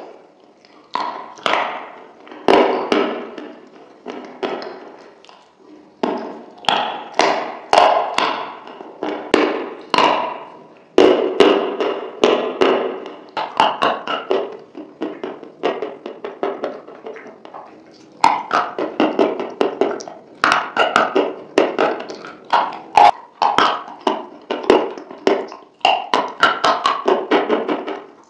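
Close-miked ASMR eating sounds: wet, sticky mouth clicks and lip smacks of someone eating a thick creamy dip off the fingers. They come in quick runs with short pauses between mouthfuls.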